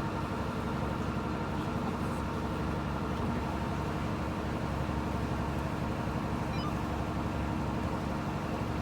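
A boat's engine running steadily while the boat motors slowly, an even hum with no change in pitch.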